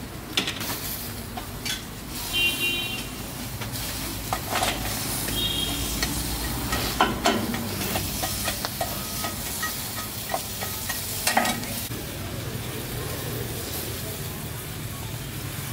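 Meatballs sizzling on a charcoal grill: a steady hiss with sharp clicks and crackles every few seconds.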